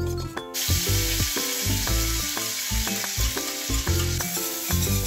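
Dan dan noodle sauce scraped into hot oil in a steel kadai, sizzling: a loud hiss that starts about half a second in and keeps on, over background music with a plucked melody and a beat.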